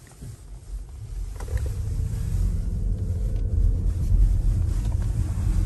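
Low, steady road and tyre rumble inside a Ford Mustang Mach-E's cabin. It rises from quiet about a second in as the car gets moving.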